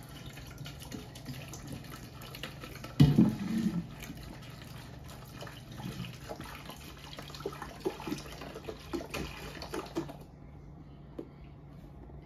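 Beer pouring from a glass bottle into a stockpot holding a little water: a splashing stream broken by irregular glugs from the bottle, with a louder gush about three seconds in. The pour stops about ten seconds in.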